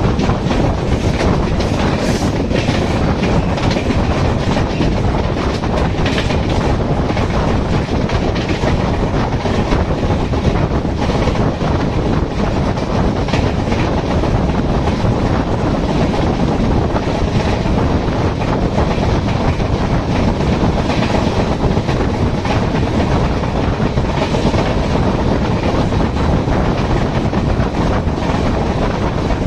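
Passenger train running along the track, heard from on board at the coach side: a loud, steady rumble of wheels rolling on the rails with occasional clacks over rail joints.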